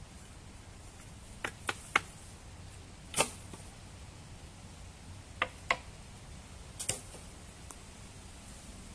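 Dry wooden sticks knocking and cracking as they are handled: about seven sharp cracks in small clusters, the loudest about three seconds in.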